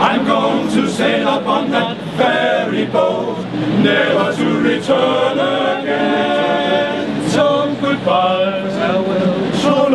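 Male voice choir of about eight men singing a cappella in parts, held chords moving from phrase to phrase with no instruments.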